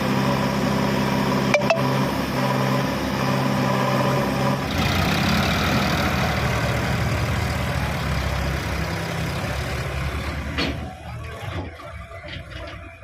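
Heavy diesel engine of a backhoe or tractor running steadily, growing rougher and noisier about five seconds in, then fading near the end. A single sharp click sounds about a second and a half in.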